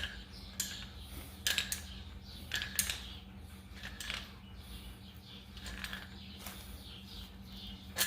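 Irregular light clicks and knocks from a new 1/2-inch air impact wrench being handled and adjusted, over a steady low hum.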